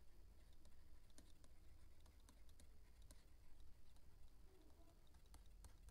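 Near silence: low room hum with a few faint, scattered light taps on a phone's touchscreen as notes are handwritten on it.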